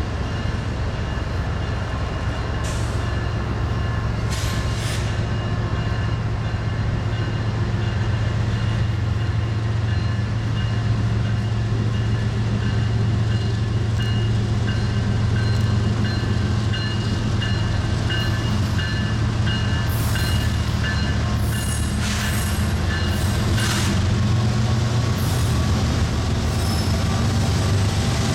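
BNSF diesel-electric locomotives pulling a train slowly past at close range, their engines a steady low drone that grows slightly louder as they come alongside. Steady high tones ride over the drone, and a few brief high hissing bursts come about 3 and 5 seconds in and several more near the end.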